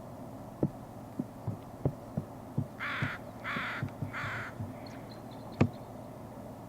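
A crow gives three harsh caws in a row, a little under a second apart. Scattered low knocks sound around them, the loudest a sharp knock about two thirds of the way through.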